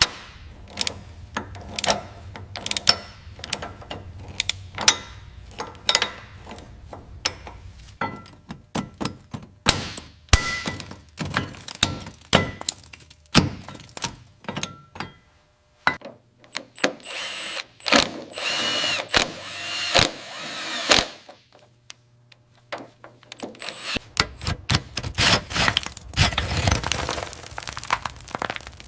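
Garage tool work: a steady run of sharp knocks, clanks and clicks, with a few seconds of power-tool whine in the middle and a brief near-silent pause after it.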